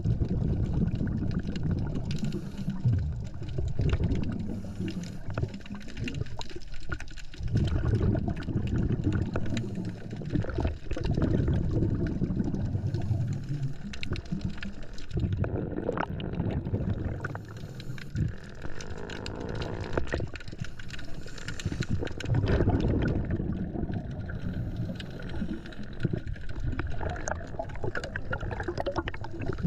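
Underwater sound of a scuba diver's exhaled bubbles gurgling past the camera, swelling and fading in surges every few seconds with each breath.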